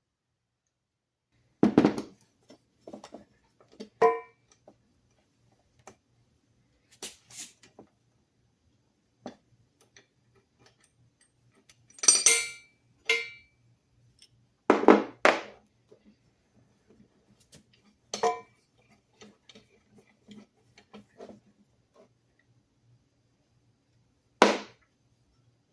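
Scattered knocks and metallic clinks of objects being handled and set down, a dozen or so at uneven intervals, some ringing briefly, over a faint steady low hum.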